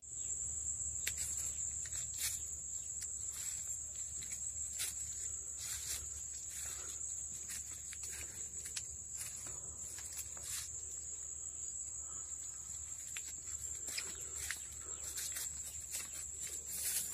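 Insects in a sugarcane field making one steady high-pitched drone, with irregular crunches and rustles of dry cane leaves from footsteps through the crop.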